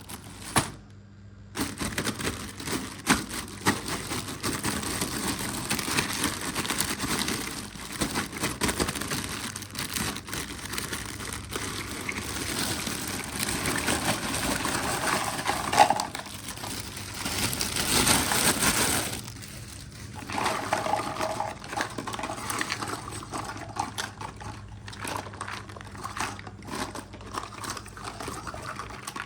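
Close handling of miniature toy kitchen pieces and their packaging: rustling and crinkling, with many small clicks and knocks of little items set down and picked up.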